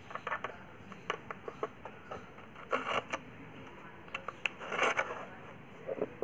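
Short scrapes and taps of a small tool working Araldite epoxy paste on a hard tray and dabbing it onto a speaker cone's lead-wire terminals. The longest, loudest scrapes come about three seconds in and again around five seconds.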